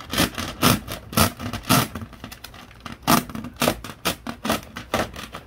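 Hand drywall saw cutting through Celotex sheathing board: sawing strokes about two a second, a pause of about a second just past the middle, then quicker, shorter strokes.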